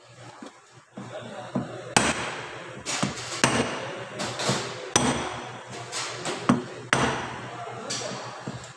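Hammer tapping on a metal driver tube set over the upper pulley of a Toyota RAV4 CVT during assembly: a string of irregular sharp knocks, each with a short metallic ring, starting about two seconds in.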